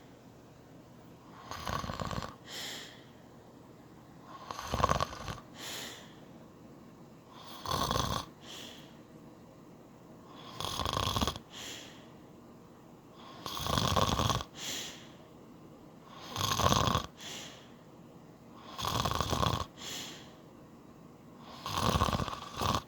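A man snoring in his sleep despite wearing an anti-snoring nose plug: eight loud snores about every three seconds, each followed by a shorter, softer sound.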